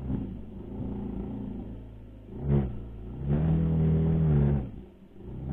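Racal MC 125 dirt bike engine revved in bursts: a quick throttle blip about two and a half seconds in, then a longer rev that rises and falls over more than a second, and another blip at the end, with the engine running unevenly in between.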